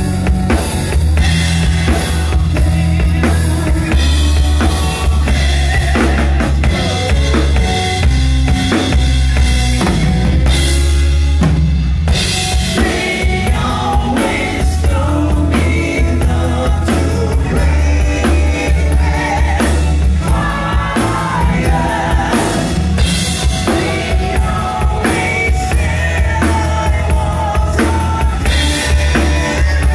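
Live rock band playing amplified acoustic guitars and bass over a full drum kit, with steady kick drum, snare and cymbals driving the rhythm.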